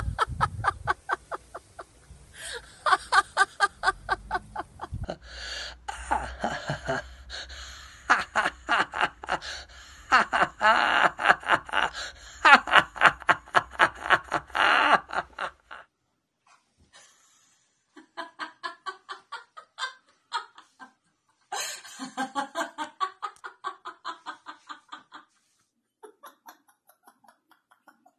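Hearty laughter from several people in turn, each laugh a quick run of rhythmic 'ha-ha' pulses: deliberate laughter-yoga laughing in the 'giggle phone' exercise. The laughing breaks off briefly a little past halfway, then comes back softer and fades near the end.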